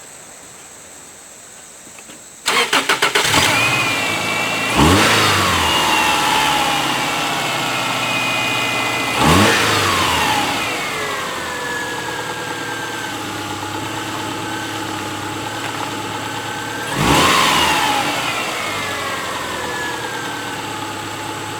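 2002 Subaru Outback's 2.5-litre flat-four engine cranked by the starter and catching about two and a half seconds in, then revved three times, each rev falling back to a steady idle. A test run with a newly fitted alternator and power steering belt.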